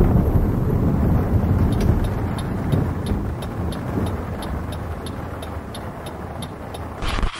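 Car driving on the road, heard as a steady low rumble that slowly fades. Faint regular ticks come about three times a second, and a short burst of hiss sounds near the end.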